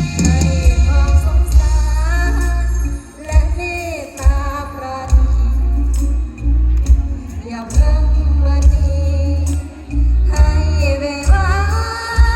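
A woman singing a melodic line over band music with a heavy bass beat.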